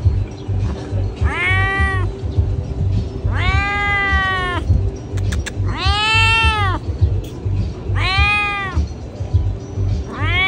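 Domestic cat meowing loudly and repeatedly, with about one long meow every two seconds. Each meow rises and then falls in pitch.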